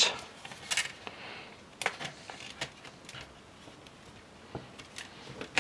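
Dell Latitude 7390 base panel being pressed down onto the chassis, its clips snapping into place with a handful of small, irregularly spaced clicks.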